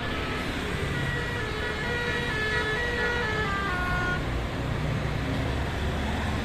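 Telolet Basuri multi-tone bus horn playing a melody that steps through several notes, ending on lower ones, for about three and a half seconds, over the low rumble of road traffic and engines.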